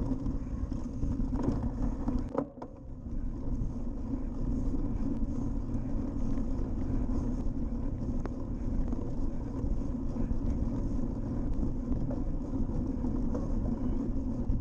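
Riding noise from a cyclocross bike on bumpy grass: wind buffeting the bike-mounted action camera's microphone, with tyre rumble and scattered rattles and knocks over bumps. It drops briefly about two and a half seconds in.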